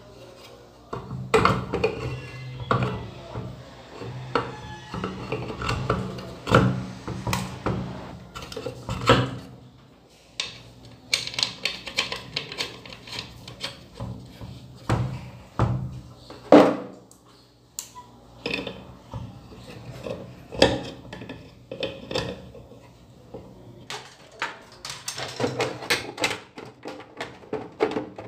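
Irregular plastic clicks, knocks and scrapes as the blower wheel of a Royu ceiling-type exhaust fan is handled and fitted back onto its motor shaft.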